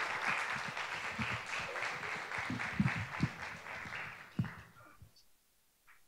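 Audience applauding, the clapping thinning and dying away about five seconds in.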